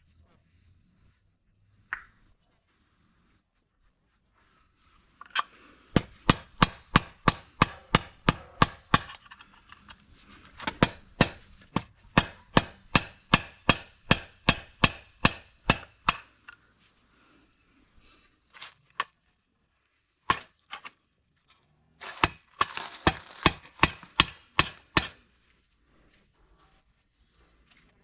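Hammer blows struck in quick runs, about three a second: one run of roughly ten seconds, a few single knocks, then a shorter run of about three seconds. Insects chirr steadily underneath.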